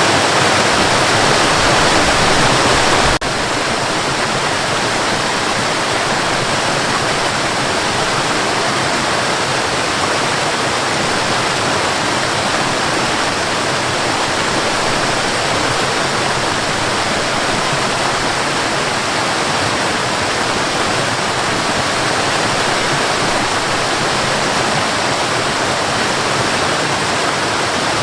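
Cascading water, a steady rushing and splashing like a small waterfall, with no pauses. About three seconds in it drops abruptly to a slightly quieter, thinner rush and then holds steady.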